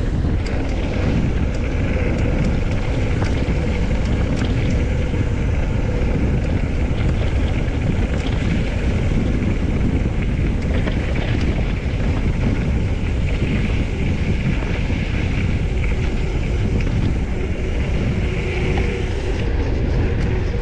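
Wind rumbling hard on the camera's microphone during a fast mountain-bike ride downhill, with the bike clattering and rattling over rough trail throughout.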